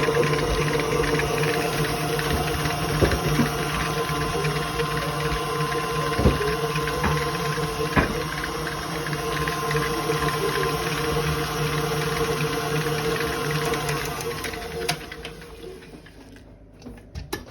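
Electric food mixer running steadily with its whisk attachment in shortbread dough, with a few knocks along the way; about fifteen seconds in the motor is switched off and winds down.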